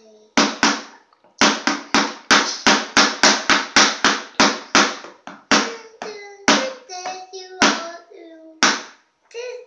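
Two drumsticks beating an upturned plastic tub used as a child's toy drum: sharp strikes, quickening to about four a second just after a second in, then slowing and sparser. A voice sounds briefly in the second half, between strikes.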